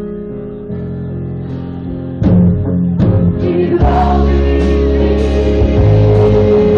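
Live band playing a Greek popular song while a woman sings. About two seconds in, the band comes in louder with drum hits and stays full.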